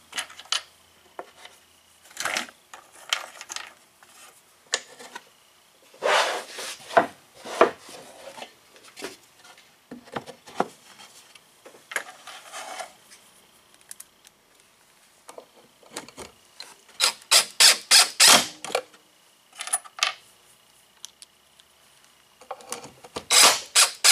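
Plywood speaker-cabinet panels being handled and fitted together: scattered knocks and scraping of wood on wood. In the second half a cordless drill drives pocket screws, twice, each time as a quick run of sharp pulses.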